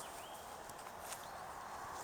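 Outdoor ambience: a steady rushing hiss, a short bird chirp at the start, and a single knock like a footstep about a second in.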